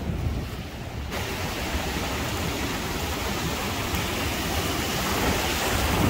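Ocean surf washing in at the shoreline: a steady rush of small breaking waves that swells about a second in and then holds.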